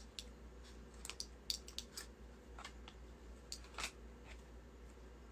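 A few faint, scattered clicks and taps, bunched about one to two seconds in and again near four seconds, over a low steady hum.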